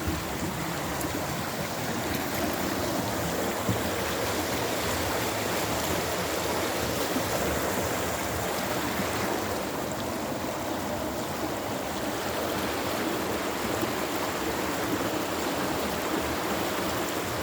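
River water rushing: a steady, even noise of flowing water.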